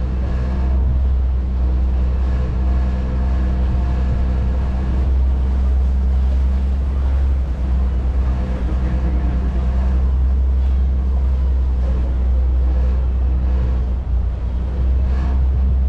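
Vaporetto (Venetian water bus) diesel engine running underway, a steady low drone that holds level throughout.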